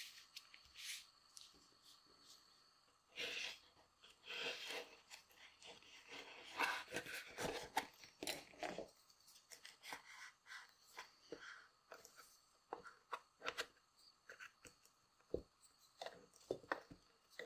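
Leather rustling and scraping as a thin leather sock liner is worked into a finished shoe by hand, loudest in the first half, followed by scattered light taps and clicks.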